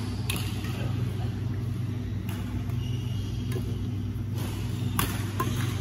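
Several sharp clicks of badminton rackets striking a shuttlecock, scattered through, over a steady low hum in the hall.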